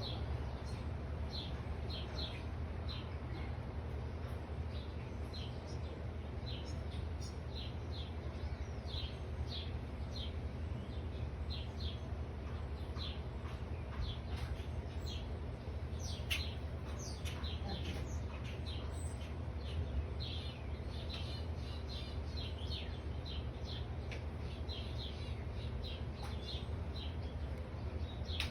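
Small songbirds chirping over and over in short, high, downward-sliding notes, several a second at times, over a steady low background rumble.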